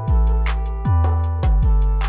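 Instrumental hip hop beat with no vocals: deep bass notes that each drop quickly in pitch as they hit, over a sustained chord and regular sharp hi-hat-like ticks.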